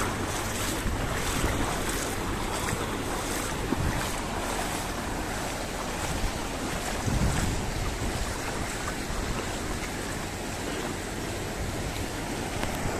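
Steady rush of floodwater from an overflowing lake, with wind buffeting the microphone.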